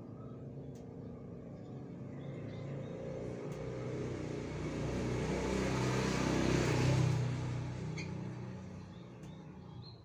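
A road vehicle passing by: its engine and tyre noise grows louder to a peak about six to seven seconds in, then fades away.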